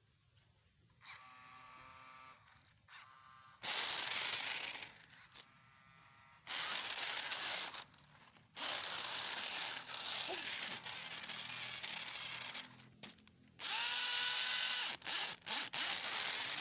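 Small electric motor of a radio-controlled off-road car whining as it is driven in bursts, its pitch rising then holding near the end. Long stretches of loud, even rushing and scraping come in between, with short pauses.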